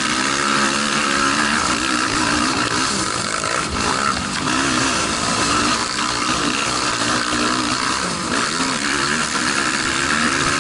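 Racing quad's engine, heard from on board, revving up and down repeatedly under load, with a steady rushing noise over it.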